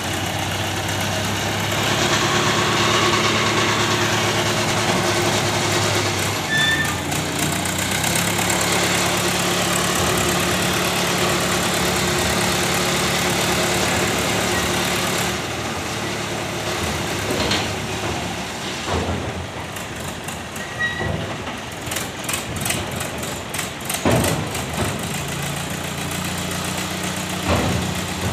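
Diesel engine of a truck-mounted mobile crane running under load as it lifts a rail wheelset. Its note steps up about a quarter of the way in and drops back about halfway. It then runs more quietly, with a few sharp knocks.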